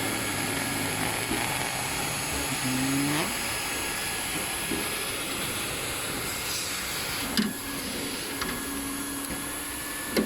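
Hot air banner welding machine running as it welds two overlapping pieces of tarpaulin: a steady blower hiss like a hair dryer. A short click about seven seconds in.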